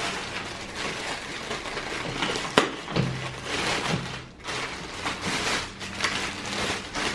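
Clear plastic packaging bag crinkling and rustling as it is pulled off a tripod, with a couple of sharper clicks about two and a half to three seconds in.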